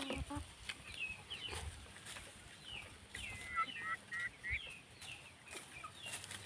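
Birds chirping: many short, high, falling calls, with a quicker run of calls about three to four seconds in.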